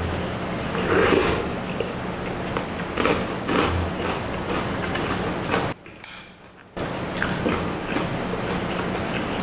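A person eating thick lomi egg noodles close to the microphone: irregular slurping and chewing mouth sounds, the loudest about a second in, over a faint steady hum. The sound drops away for about a second past the middle.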